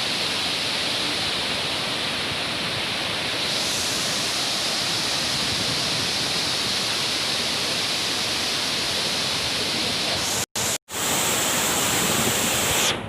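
Waterfall heard up close: a loud, steady rush of falling water. It cuts out twice, very briefly, about ten and a half seconds in.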